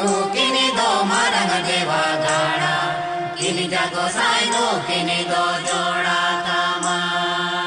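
Chanting voices over a steady drone, with a light tick about once a second. The voices stop about two-thirds of the way through while the drone carries on.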